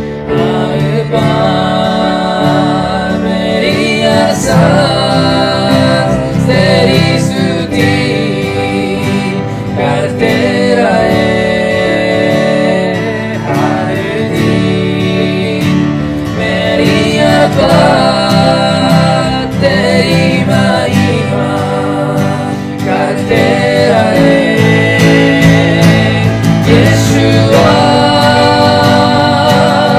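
A man singing a Hindi worship song, accompanying himself on an electronic keyboard. Near the end he sings the word "Yeshua".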